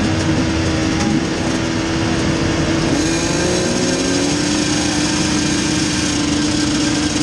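Several KTM motocross bikes' engines running together on the start line, held at steady revs with one dipping and climbing back about three seconds in, as the riders wait for the start gate to drop.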